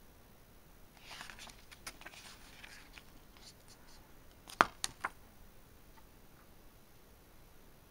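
Soft rustle of a paper page being turned in an illustration booklet, then, about halfway through, three quick sharp clicks, the first the loudest.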